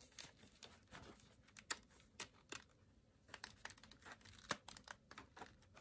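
Faint, irregular clicks and crackles as a face pad is pressed and adjusted onto DJI FPV goggles, with Velcro catching and tearing and plastic parts clicking.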